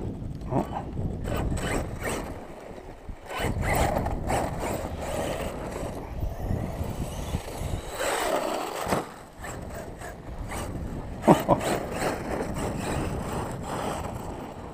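Crunching and scraping on gravel and dirt with wind on the microphone, broken by scattered clicks, and a sharp knock about eleven seconds in followed by a brief falling whine.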